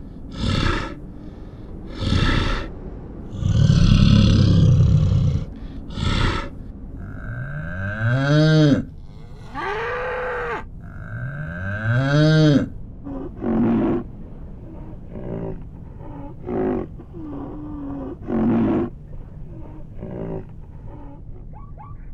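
A brown bear growling and roaring in several harsh bursts, the loudest about four seconds in. Then Highland cattle mooing: three long calls that rise and fall in pitch, followed by a string of shorter, lower moos.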